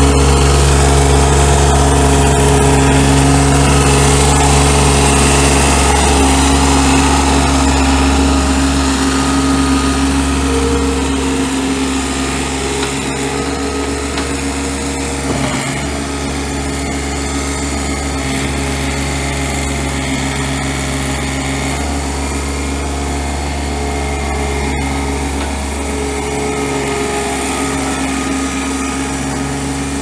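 1987 John Deere 575 skid steer's three-cylinder diesel engine running steadily, a little quieter from about a third of the way in.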